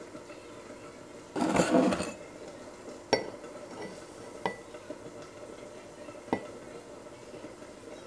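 Kitchen crockery handled while making a matcha latte: a short loud clatter about a second and a half in, then three light, ringing clinks of ceramic and metal spread over the next few seconds.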